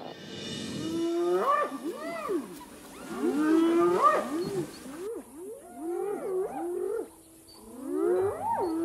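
Several spotted hyenas calling together, overlapping rising-and-falling whooping, whining calls that come in four bouts about two seconds apart.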